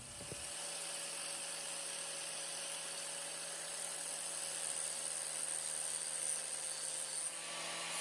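Grinder running against a piece of steel, trimming off its corners: a steady motor whine over an even grinding hiss, the pitch sagging slightly as it bears into the metal.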